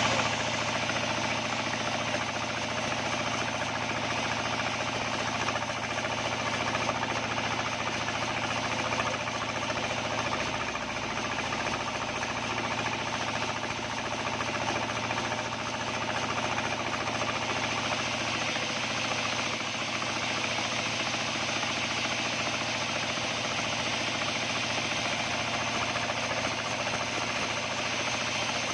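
Locally built 28-inch band sawmill running on a trial run: a steady mechanical drone that holds an even level and pitch throughout.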